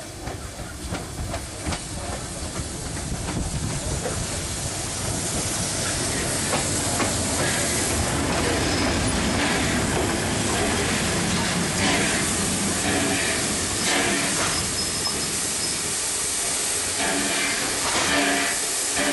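DD17 class 4-6-4T steam tank locomotive approaching and drawing slowly past at close range, growing louder over the first several seconds, with a steady hiss of escaping steam and the clatter of its wheels.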